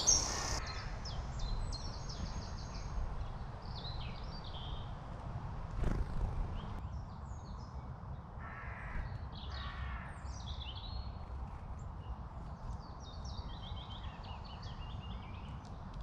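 Small woodland birds calling around a seed-strewn stump, with high chirps and twitters throughout and two harsher, lower calls about nine seconds in. A single knock sounds about six seconds in, over a steady low rumble.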